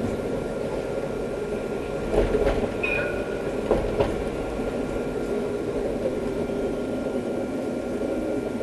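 Interior running noise of an Alstom Citadis 302 tram under way: a steady rumble with a faint steady high tone. A few sharp knocks come between two and four seconds in, with a brief high squeal near three seconds.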